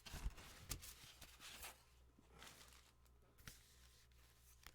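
Faint rustling of comic books and their paper and plastic packaging being handled, in several short bursts.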